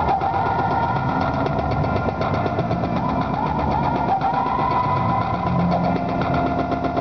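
Noise-music mix of processed everyday sounds: a dense, continuous texture of fast pulsing over a steady low rumble, with short sliding tones that recur every second or two.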